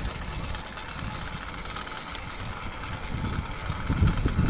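80cc two-stroke motorized bicycle engine running while riding along, with wind rushing over the microphone; it grows louder near the end.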